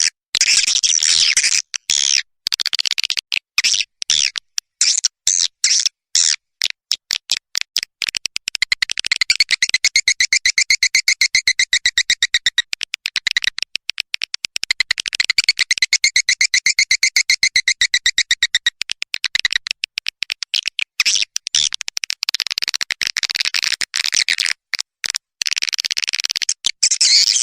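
Swiftlet calls: fast trains of sharp chirping clicks, running twice into rapid buzzing trills with a steady two-tone ring, about a third of the way in and again past the middle. A swiftlet call-and-lure recording of the kind swiftlet farmers play to draw birds to their nest houses.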